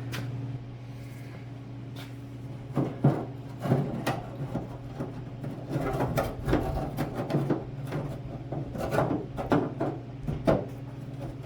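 Corroded tailgate handle of a 1978 Ford F150 scraping, rattling and knocking against the inside of the steel tailgate as it is worked out by hand with its clip still on. The scrapes and clunks start about three seconds in and come irregularly, over a low steady hum.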